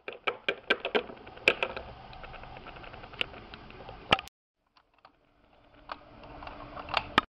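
Handling noise from a small plastic toy figurine being moved by hand: irregular light clicks and taps over soft rustling, broken by about a second of silence a little past the middle.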